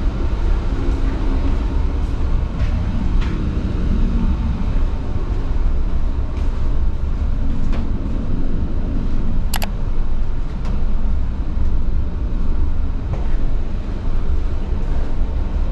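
Steady low rumble of a cargo ship's machinery and ventilation carried through the accommodation corridor. A few faint taps and one sharp click come a little past the middle.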